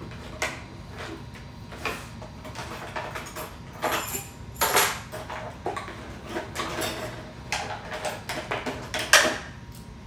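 Unpacking a cardboard box of door-lock hardware: cardboard and plastic packaging rustling, with small clicks and knocks of metal parts. There is a louder clatter about halfway through and another near the end.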